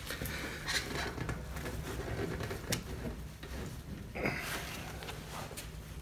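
Scattered clicks, knocks and rubbing as a dirt bike tyre's bead is worked onto the rim, with a short scrape about four seconds in and a low steady hum underneath.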